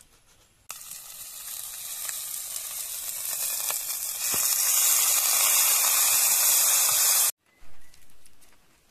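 Coconut milk poured over fried fish in a hot, banana-leaf-lined clay pot, sizzling. The sizzle starts suddenly about a second in, gets louder about halfway through, and cuts off abruptly near the end.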